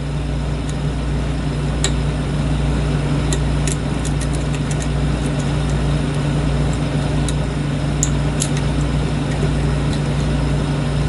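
Steady low background hum, with a few faint, sharp metallic ticks of a lock pick working against the pins inside a lock cylinder.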